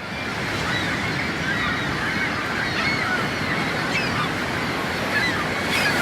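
Steady rushing outdoor noise, like wind on the microphone, with many short high chirps scattered through it; it fades in quickly at the start.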